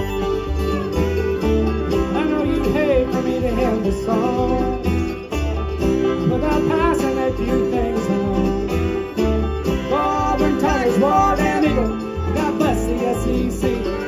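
Live bluegrass band playing: banjo, acoustic guitar, fiddle and upright bass together.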